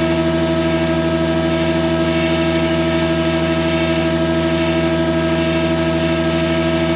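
Holzmann HOB 400V gearbox and drive motor running steadily at a set speed, a constant hum and whine made of several even tones with a slight regular pulsing. The owner takes this gearbox to be damaged.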